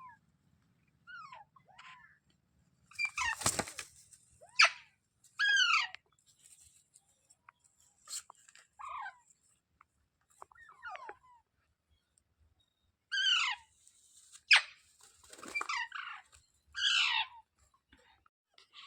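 A parrot giving a series of short, arching squawks and chirps with pauses between them. One louder, noisier burst comes about three and a half seconds in.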